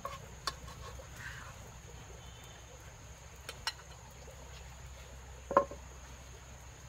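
Insects droning in one steady high tone, with a few short clicks or knocks over it, the loudest about five and a half seconds in.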